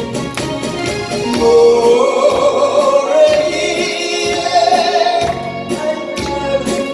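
A singer sings a Korean trot song over instrumental backing, holding a long wavering note through the middle.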